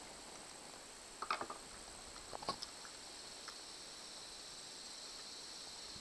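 Small clicks and scrapes of a screwdriver and a plastic case as the screws are taken out of a MotorGuide handheld trolling-motor remote to reach its battery. There is one short cluster about a second in and another around two and a half seconds, over a steady high hiss.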